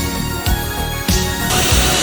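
Background music with a steady beat; a broad hiss joins about one and a half seconds in.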